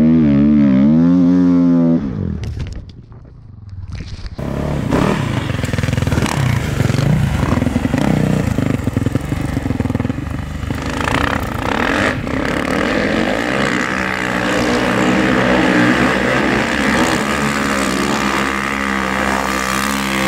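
Snowbike engine, a dirt bike fitted with a snow track kit, revving hard as it ploughs through deep powder. Its pitch rises and falls at first, it drops away briefly a couple of seconds in, then it comes back loud and settles into a steadier held note in the second half.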